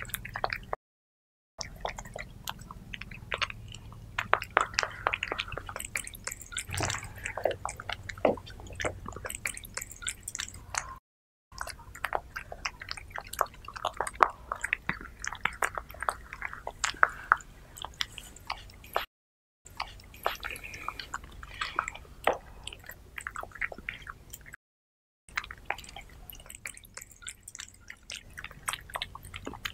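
Cat eating soft wet food: a run of irregular wet smacking, licking and chewing clicks. Four brief dead-silent gaps break it up.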